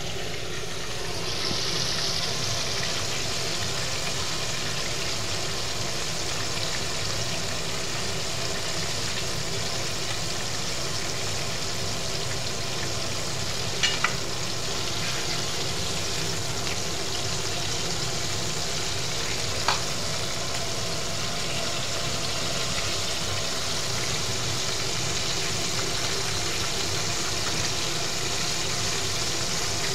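Flour-coated chicken pieces deep-frying in hot oil in a pot: a steady sizzle that gets louder about a second and a half in. Two short sharp clicks stand out, about midway and about two-thirds of the way through.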